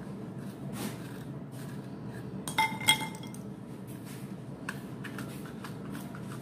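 A metal zucchini corer scraping out the flesh of a kusa (Middle Eastern zucchini) in light, repeated strokes. About two and a half seconds in, a ringing metal clink stands out.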